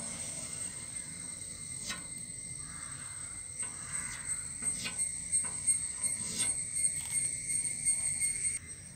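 White chalk scratching on a blackboard as curved lines are drawn, in short, irregular strokes that stop shortly before the end.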